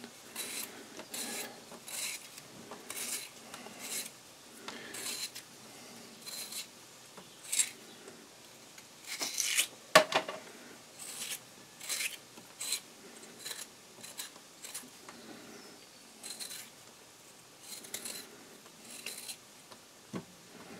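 Potatoes being peeled by hand with a small blade: short scraping strokes of the blade across the skin, about two a second. About ten seconds in there is one sharper, louder click.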